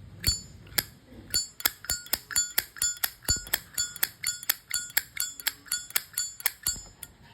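Solid brass Zippo lighter's hinged lid being flicked open and snapped shut over and over: a rapid run of sharp metallic clicks, about four a second, each with the lighter's characteristic bright ringing clink.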